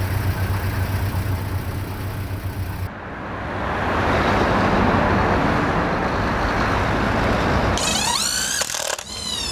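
A boat's engine running with a steady low hum, then, after an abrupt cut about three seconds in, a loud rushing of wind and sea. A voice breaks in near the end.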